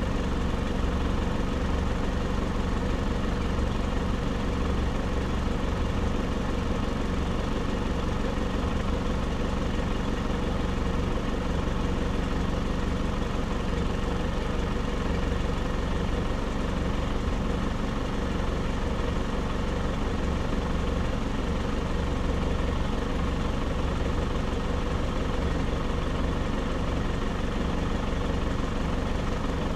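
Off-road vehicle's engine idling steadily while the vehicle stands still.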